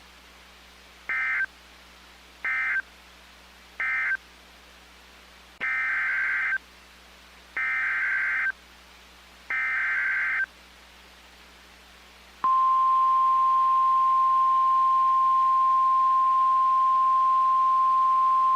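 NOAA Weather Radio alert signals: three short buzzy data bursts, then three longer ones, the SAME digital code that ends one warning and heads the next. Then, about twelve seconds in, the steady single-pitch warning alarm tone starts and holds, louder than the bursts, announcing a new severe thunderstorm warning.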